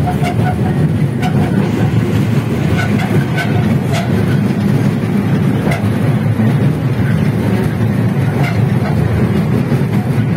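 Park toy train running, heard from inside its carriage: a steady low rumble with irregular clacks and rattles.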